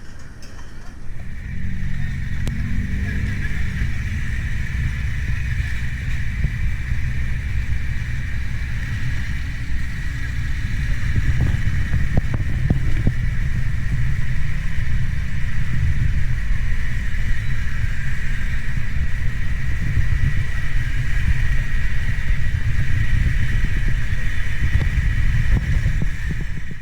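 Motor vehicle engine running steadily with a heavy low rumble and a constant higher hiss-like whine over it.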